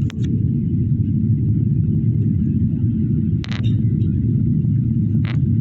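Steady low rumble of jet airliner cabin noise during the descent, broken by three brief short sounds: one at the very start, one about three and a half seconds in, and one a little after five seconds.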